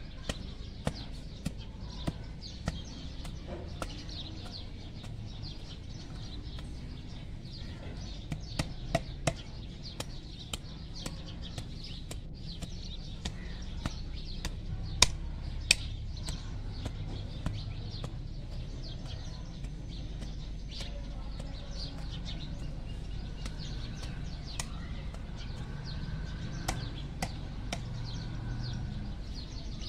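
Small hand hoe chopping into dry, clumpy garden soil: a run of sharp, irregular strikes, most frequent in the first half, with the loudest pair about halfway through. Birds chirp faintly in the background.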